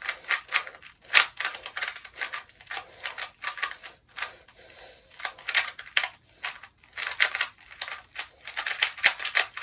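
A 2x2 Rubik's-style puzzle cube being turned rapidly in the hands, a fast dense clatter of plastic clicks, with a short lull about four to five seconds in.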